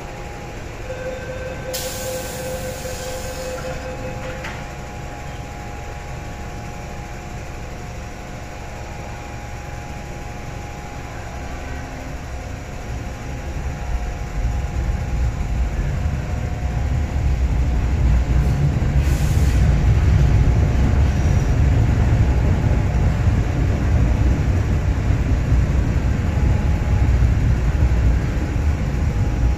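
MTR M-train electric multiple unit pulling out of an underground station. There is a short hiss about two seconds in, then a low rumble of motors and wheels that builds from about thirteen seconds and stays loud as the train gathers speed past the platform.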